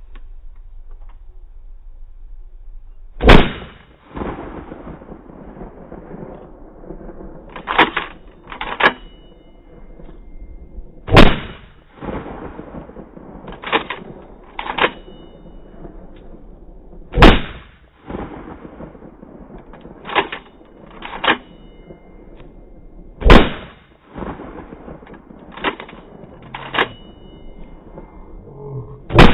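Shotgun blasts, five loud shots spaced about six seconds apart. Between each pair of shots come two lighter sharp clacks about a second apart.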